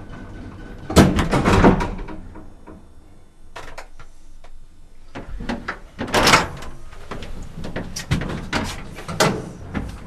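Old lift running with a steady hum, then its doors clattering and banging: a loud clatter about a second in, another around six seconds, and a run of sharp knocks near the end.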